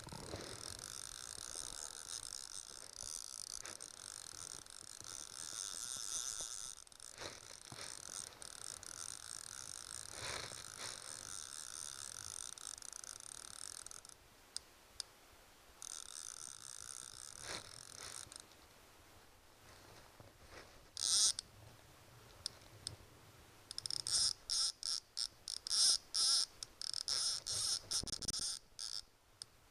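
Fly reel's click-and-pawl ratchet running as a hooked salmon is played: a long high buzz for the first half, then short rapid bursts of clicking near the end.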